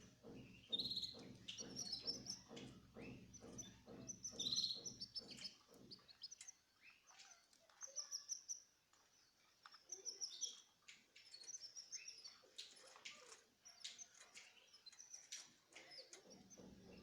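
Small cage birds chirping in quick, repeated short calls. A low steady hum sits under them for the first six seconds and comes back near the end.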